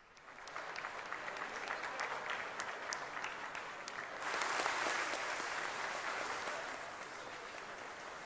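A large audience applauding after a speech. The clapping builds up over the first second and becomes louder and denser about four seconds in.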